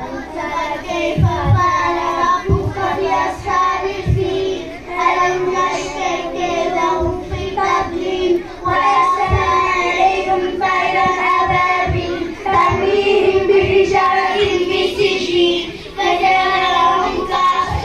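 A child's voice chanting Quranic recitation in a melodic style, drawing out long wavering notes in phrases with short pauses for breath between them. A few low thumps sound in the first few seconds.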